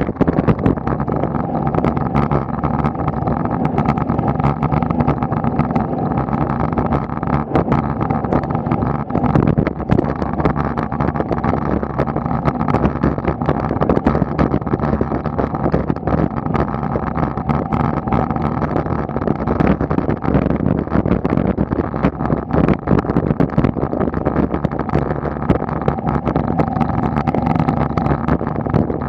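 Steady road rumble and rattle picked up by a bicycle-mounted camera riding up paved asphalt at about 15 km/h, with many small knocks from road vibration.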